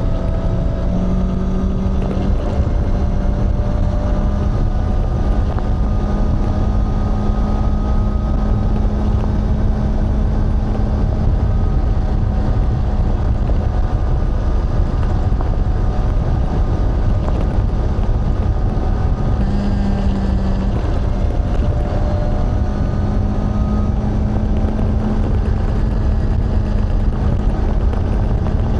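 Honda CBR650R inline-four engine and exhaust running at fairly steady revs, the note creeping slowly upward with a brief dip about two-thirds of the way through, over a dense low rumble.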